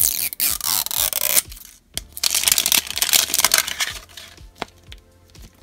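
Printed plastic wrapper being torn and peeled off a plastic capsule ball, crinkling in two long stretches, then a few light clicks as the bare capsule is handled.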